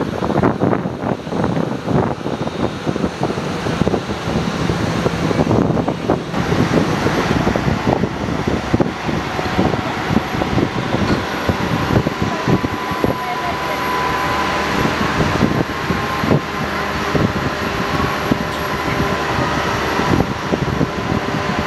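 Airliner jet engines running on the apron: a steady rush, joined by a thin whine about halfway through, with wind buffeting the microphone.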